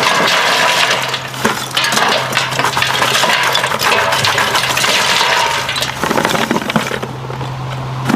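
Charcoal being poured into a metal burn barrel, a dense clatter of pieces clinking against each other and the barrel, easing off about seven seconds in.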